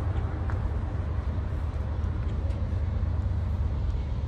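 Low, steady rumble of an approaching Norfolk Southern freight train's diesel locomotives, still out of sight down the line.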